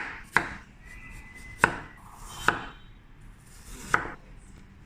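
A knife chopping on a cutting board: five sharp, separate chops at an uneven pace.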